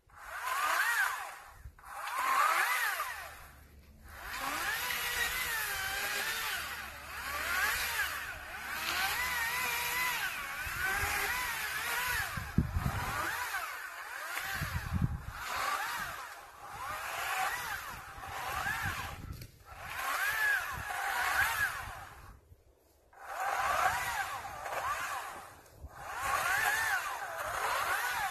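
Greenworks 40-volt DigiPro brushless battery chainsaw cutting branches. It runs in repeated bursts of a few seconds with short pauses between, and its motor whine wavers in pitch as it cuts.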